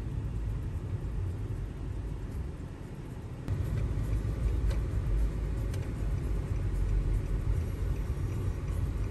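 Car cabin noise while driving: a steady low rumble of engine and road noise, stepping up suddenly in level about three and a half seconds in.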